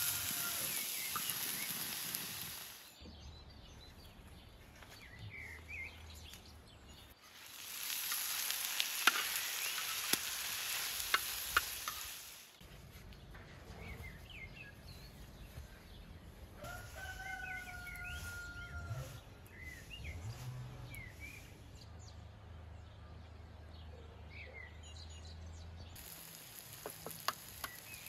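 Mushrooms, tomatoes and bell peppers sizzling in a hot round steel disc pan, in two stretches of a few seconds each with some crackles. Between them a rooster crows once, and small birds chirp.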